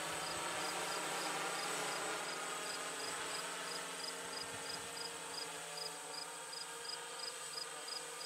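Eye-Droid 6 hexacopter's electric motors and propellers buzzing steadily in flight, a layered drone hum that fades slightly as it goes.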